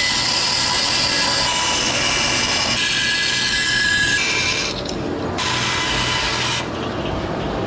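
Vertical bandsaw cutting thin aluminum sheet: a loud, steady rasp of the blade through the metal, carrying high ringing tones. It eases a little about five seconds in and again near the end.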